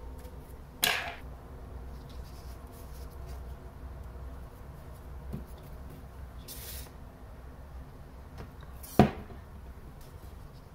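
Handling noise at a craft table: a sharp knock about a second in and a louder one near the end. Partway through comes a brief hiss as a bottle of liquid glue is squeezed along a string laid over wooden craft sticks, all over a steady low room hum.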